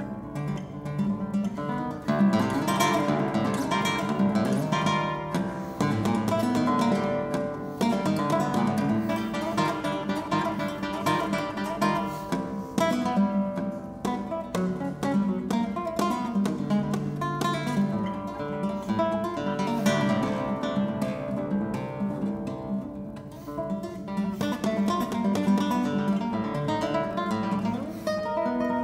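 Solo classical guitar playing a concert piece: quick plucked notes and chords with many sharp attacks, easing to a quieter passage about three quarters of the way through.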